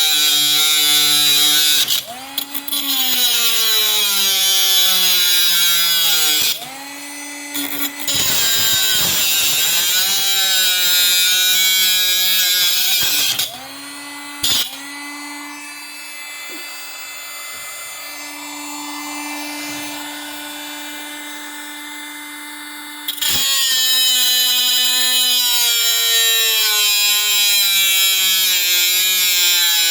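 Cheap cordless battery angle grinder cutting a thick metal bar, its motor whine sagging and rising in pitch under load. Twice it cuts out and starts up again, a stalling the owner puts down to overheating or a battery not fully charged.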